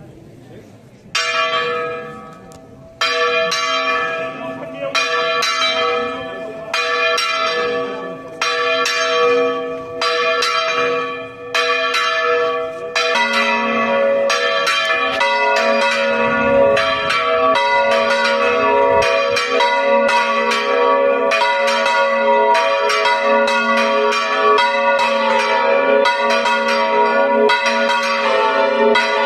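Church bells swung full circle by hand (Spanish volteo): at first a single bell strikes alone, about once every two seconds, each stroke ringing on. About thirteen seconds in, the other bells join, and their strokes overlap in a dense, continuous peal.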